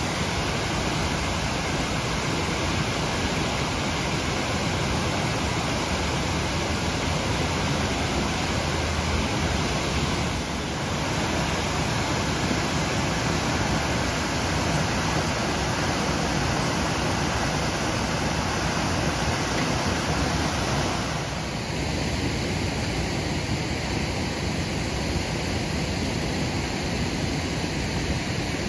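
Water gushing uncontrolled from a broken fire hydrant: a steady, loud rushing hiss of the spray. About two-thirds of the way through the rush changes abruptly in tone, and a faint steady high tone heard beneath it until then stops.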